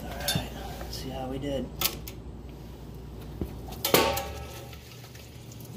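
A well pump hums steadily as it fills a new pressure tank; about four seconds in, the pressure switch cuts out with a sharp click and the low hum changes, the sign that the switch has reached its factory 50 psi cut-out setting.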